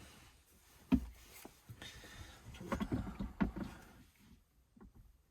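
Handling sounds of a drill and plastic console trim being set up for drilling: a sharp knock about a second in, then a couple of seconds of irregular bumping and rubbing, dying away to near quiet.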